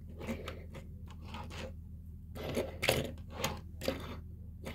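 Light clicks and scrapes of die-cast toy cars being handled and turned around on a table top, with a few sharper clicks past the middle, over a steady low hum.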